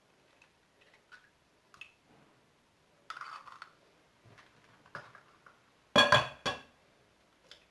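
Eggs being cracked on the edge of a bowl: small clicks and a brief rustle, then two sharp knocks about six seconds in, half a second apart, that ring briefly.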